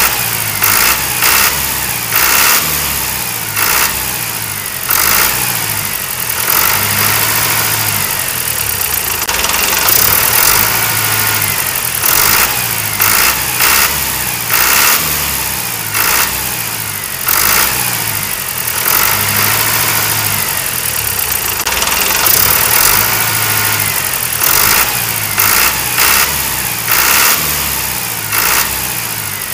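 Tractor engine sound, chugging and revving, with the same short pattern repeating over and over like a loop.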